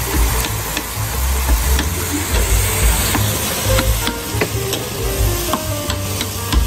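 Monjayaki batter and shredded cabbage sizzling on a hot steel teppan griddle while small metal spatulas chop, scrape and clack against the plate in quick, irregular clicks, over a low rumble.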